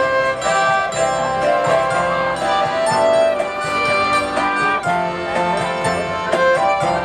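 Live folk ensemble playing an instrumental passage on violin, accordion, guitar and keyboard, with a steady strummed beat.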